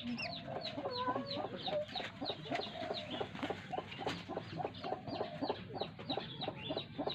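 Young shrikes calling in a rapid, steady run of short, high, down-slurred calls, about four to five a second, with a lower wavering sound in places.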